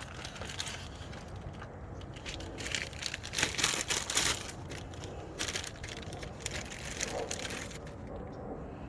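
Small plastic bag of mounting clips crinkling and rustling as it is opened and handled, loudest a few seconds in.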